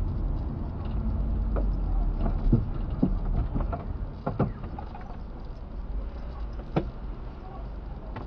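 Low, steady rumble of a car's engine and road noise inside the cabin, picked up by a dash cam, with a handful of short clicks and knocks scattered through it.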